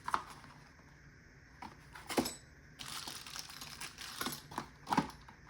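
Locks and keys being handled: a few small metallic clicks and clinks, with a short rustle midway.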